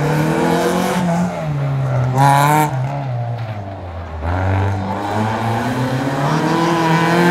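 Engine of a first-generation Volkswagen Golf competition car revving hard up and down as it is driven through a tight cone slalom. It hits a loud high-rev peak about two seconds in, drops low just after four seconds, then climbs again.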